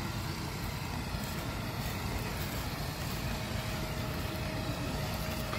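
Steady rumble of vehicle engines and road traffic on the highway, with a faint steady tone coming in about three seconds in.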